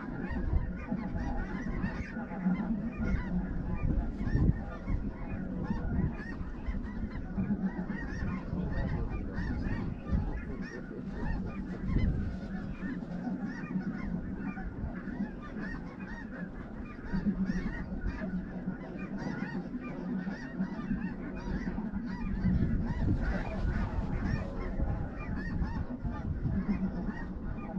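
A large flock of snow geese calling, a dense, continuous chorus of honking with many calls overlapping, over a steady low rumble.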